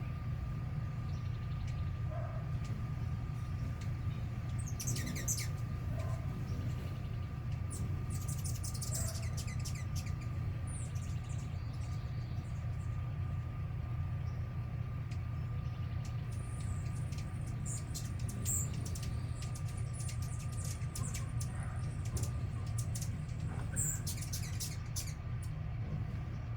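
Small birds chirping in short, high, scattered calls, some in quick clusters, over a steady low rumble and a faint steady hum.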